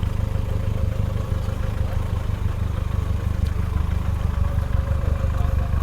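A car engine idling, a low, steady rumble.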